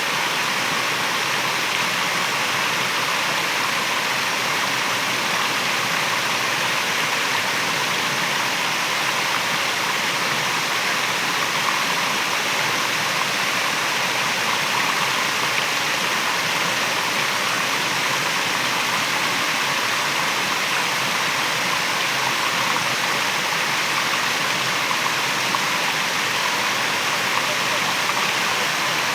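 Waterfall: water pouring and splashing in a steady, even rush that stays at the same level throughout.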